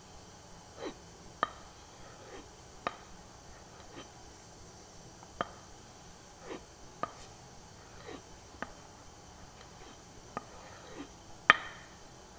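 Carving axe being stropped on a strop charged with grey compound to take the burr off a freshly ground edge: short scraping strokes with irregular light clicks and taps as the axe is laid on and lifted off, about once a second. A sharper knock comes near the end.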